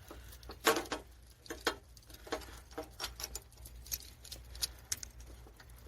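Irregular light clicks and taps of hands working metal parts, the clutch cable and its bracket being handled and fitted, over a faint steady low hum.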